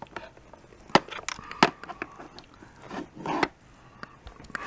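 Handling noise: sharp clicks and light knocks as hard plastic parts are moved about. The two loudest clicks come about a second in and about half a second later, then a short clatter around three seconds in.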